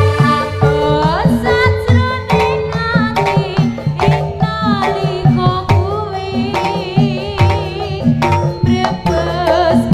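East Javanese jaranan music: kendang hand drums beating a driving rhythm under a wavering melodic line.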